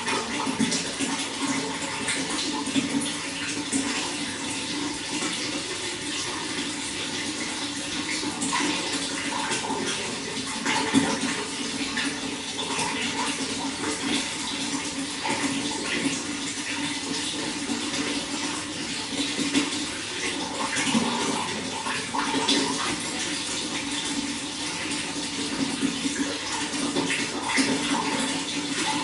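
Running water flowing steadily, with many small splashes throughout.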